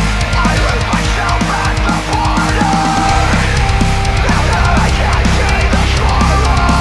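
Loud heavy rock music with a steady drum beat.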